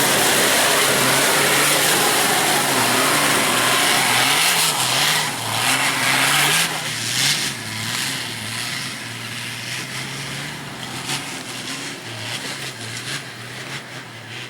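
Off-road 4x4 engine revving hard at full throttle up a loose-stone climb, its pitch rising and falling, with a loud rush of noise. After about six or seven seconds it becomes quieter and more uneven.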